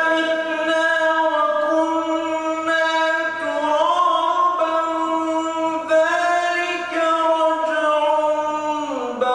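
A man's voice reciting the Quran in a melodic, sung style, holding long ornamented notes in one continuous phrase that falls in pitch near the end.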